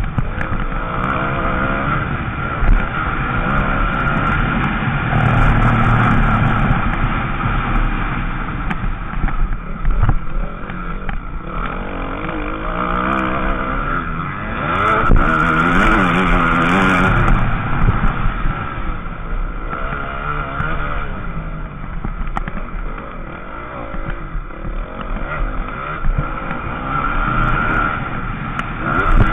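Motocross bike's engine heard up close from a camera mounted on the bike, revs climbing and dropping again and again with throttle and gear changes while racing on a dirt track.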